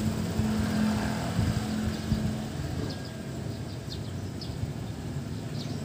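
A vehicle engine idling, a low steady hum; a slightly higher tone in it fades out about two and a half seconds in.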